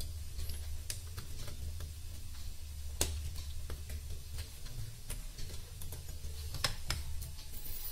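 Faint scattered clicks and ticks of a soldering iron desoldering a capacitor on a CRT TV circuit board, with one sharper click about three seconds in, over a low steady hum.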